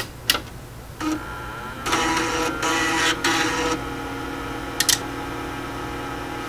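Agilent mixed-signal oscilloscope being switched on: a click at its power button, then it starts up with a steady hum and tone, louder mechanical noise for a couple of seconds, and a quick double click about five seconds in.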